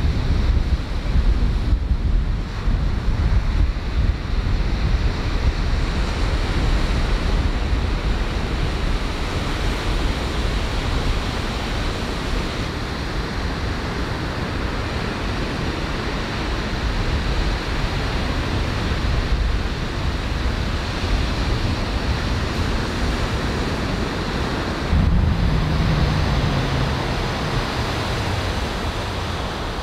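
Small surf breaking and washing up on a sandy beach, with wind rumbling on the microphone. A low hum joins in about 25 seconds in.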